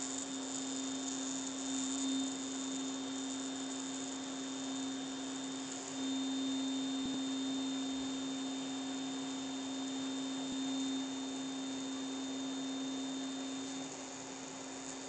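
A steady hum at one constant pitch, a little louder from about six seconds in until near the end.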